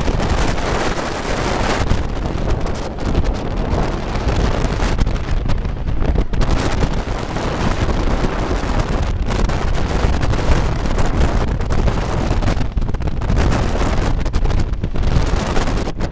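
Wooden roller coaster train running fast on its wooden track, heard from on board, with heavy wind buffeting the microphone.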